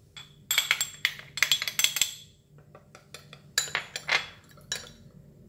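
Metal spoon clinking against a small glass bowl while stirring tapioca flour into water. The clinks come in two runs of quick strokes, the first about half a second in and the second about three and a half seconds in.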